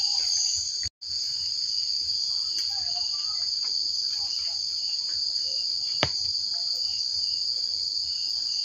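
Steady, high-pitched chorus of insects in the forest, broken off for an instant about a second in, with a single sharp click about six seconds in.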